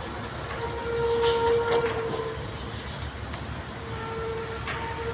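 A horn sounding two long, steady single-pitch blasts, the first about half a second in and the second starting near the end, as the signal for demolishing a heavily damaged building. A steady low rumble runs underneath.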